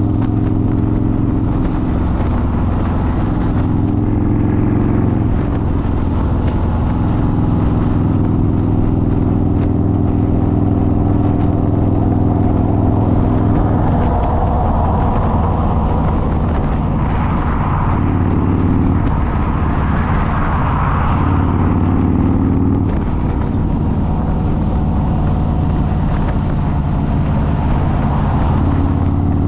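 Harley-Davidson motorcycle's V-twin engine running, its pitch stepping up and down several times as engine speed changes, with a rushing noise swelling about halfway through.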